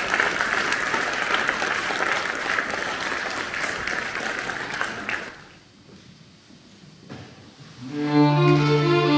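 Audience applause that fades out about five seconds in, then a short hush, then a string quartet of two violins, viola and cello starts playing near the end, with a held low note under shorter notes above.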